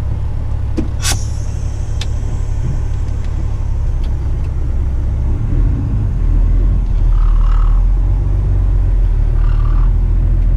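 Heavy rigid tipper truck's diesel engine rumbling heard from the cab, with a sharp click and a short hiss about a second in. The engine gets louder and deeper about halfway through.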